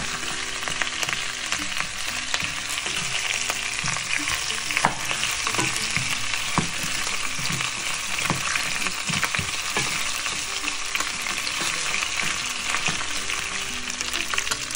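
Oxtail pieces sizzling steadily as they brown in a little oil in a pot. Occasional short knocks and scrapes come from a wooden spatula turning the pieces.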